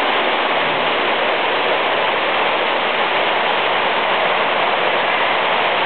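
Sludge dewatering press in a wastewater plant running, pressing water out of sludge between its rollers and belts: a loud, steady, even rushing noise of machinery and water.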